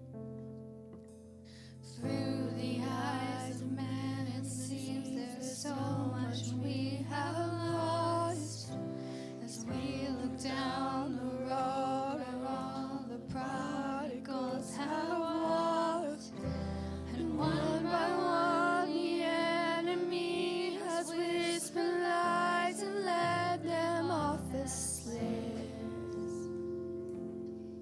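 Worship song: a solo singer over instrumental accompaniment. The voice comes in about two seconds in and drops out a few seconds before the end, leaving the accompaniment alone.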